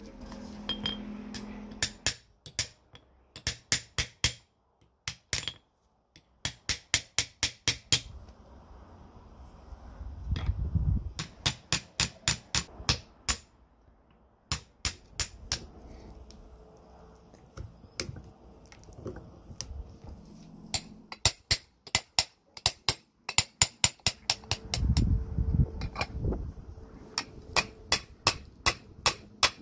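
Hammer striking a steel tube drift to drive ball bearings into a chain hoist's housing and onto its shaft. Sharp, ringing metal taps come in quick runs of four to eight, with short pauses between the runs.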